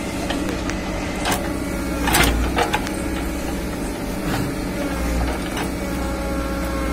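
Caterpillar backhoe loader's diesel engine running steadily under load with a hydraulic whine as the backhoe arm works, broken by about five sharp metallic clanks from the bucket and boom linkage.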